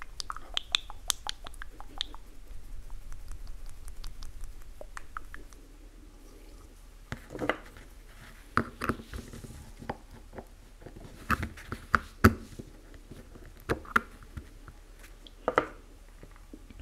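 Small metal paint tin being handled and set down on cardboard: light clicks and rustling for the first few seconds, then a series of separate sharp knocks and taps.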